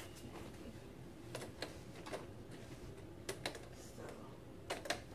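A scattering of short, light clicks and knocks at irregular moments, some in close pairs, as the parts of a Graco Slim Spaces baby swing are handled and fitted together.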